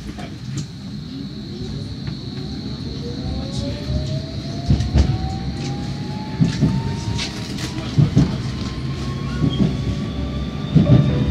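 Electric tram's traction motor whining, rising steadily in pitch as the tram accelerates. Its wheels knock several times over rail joints and points.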